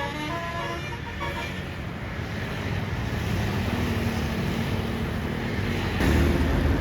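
A Basuri multi-tone telolet bus horn melody trails off in the first second, then a bus engine's low rumble grows louder, stepping up near the end as the bus passes.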